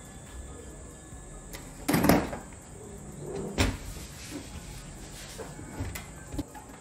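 Plastic knocks and clatter from a portable DVD player's casing being handled: a loud cluster of knocks about two seconds in, another knock a little later, and a few lighter taps near the end.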